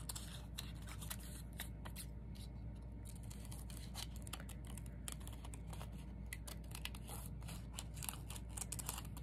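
Large scissors snipping paper, cutting out a small printed flower: a run of short, irregular snips.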